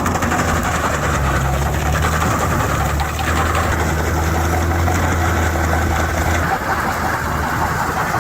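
A motor vehicle's engine running steadily with a deep drone. The drone drops away about six and a half seconds in.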